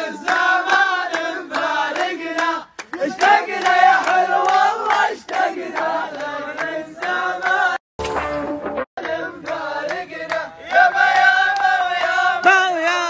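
A group of men singing or chanting together with a sharp percussive beat. The sound breaks off briefly about eight seconds in, then resumes.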